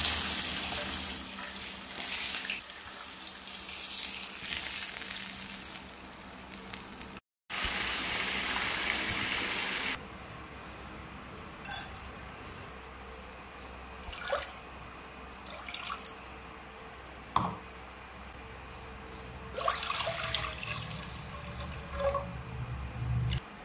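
A run of kitchen sounds. First a steady hiss of fish sizzling in a wok on a gas stove, with a short break and a louder stretch. Then a few light clinks and knocks of a bowl against a pot, and water poured into the pot near the end.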